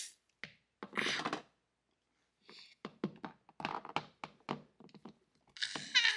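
Small vinyl toy figures and their packaging being handled on a table: scattered light knocks and clicks, with a short rustle about a second in and a longer one near the end.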